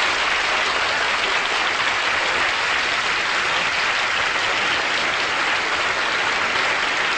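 Audience applauding steadily, a dense even clapping that does not let up.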